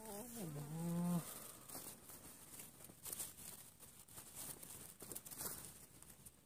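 A low, drawn-out call that bends up and down in pitch and breaks off about a second in, followed by light rustling and clicks as a freshly caught fish is gripped in a cloth and handled on the line.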